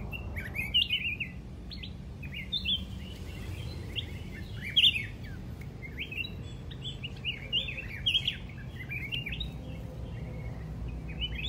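Red-whiskered bulbuls giving short, sharp chirping calls in quick clusters all through, the aggressive calling of a free bird fighting a caged one. A steady low hum of background noise lies underneath.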